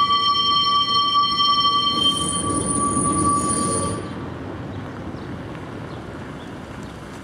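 Gotha tram's steel wheels squealing on tight curved track, a steady high squeal of several tones over a low rolling rumble. The squeal fades out about four seconds in, leaving the quieter rumble of the wheels on the rails.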